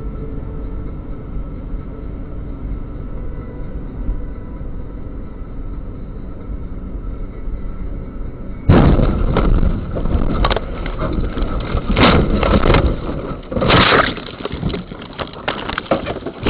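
Steady road and engine noise inside a moving car, then, about nine seconds in, a sudden car crash: a loud impact followed by a run of heavy, irregular bangs and crunches over several seconds as the car comes off the road.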